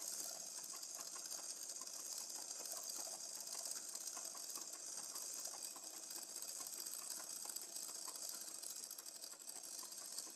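Domestic straight-stitch sewing machine stitching steadily, its needle and feed mechanism making a fast, even ticking.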